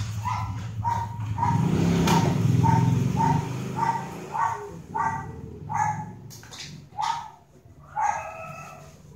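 A young pet animal crying in short, high, evenly repeated calls, about two a second. A louder low drone runs under the calls for a couple of seconds in the first half.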